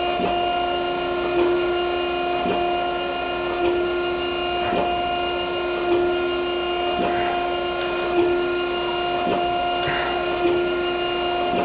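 Okamoto ACC-1224DX hydraulic surface grinder running its automatic grinding cycle, the wheel feeding down a thousandth per pass. The hydraulic drive and wheel spindle give a steady hum, and a light knock comes a little under once a second with each table stroke.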